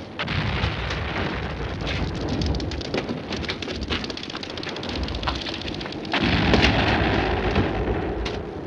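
Battle noise from a war film's soundtrack: a steady crackle of distant rifle and machine-gun fire over a low rumble of shelling, growing louder about six seconds in.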